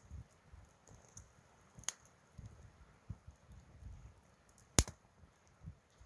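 Soft low knocks and handling noises with a few sharp clicks, the loudest a single snap just before five seconds in.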